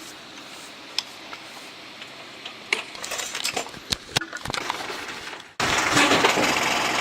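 Scattered light metallic clinks and knocks of hardware being handled during teardown of firework racks. About five and a half seconds in, it cuts abruptly to a louder, steady noise.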